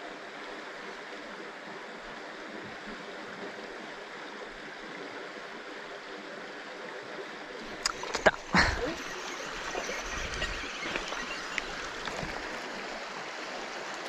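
Shallow stream running steadily over a stony bed. About eight seconds in come a few sharp clicks and one louder knock, then a couple of seconds of low rumbling handling noise.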